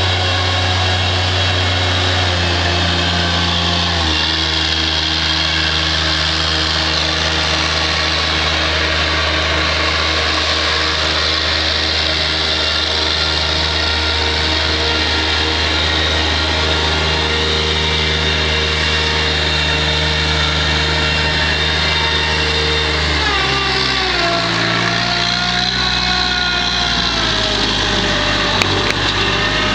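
New Holland L125 skid steer's diesel engine running steadily, its pitch stepping to a new steady speed about four seconds in. In the last several seconds the engine note wavers up and down.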